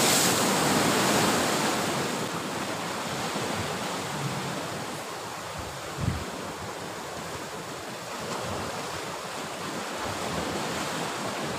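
Sea surf washing in, loudest at the start and easing off, with wind, and a brief low thump about six seconds in.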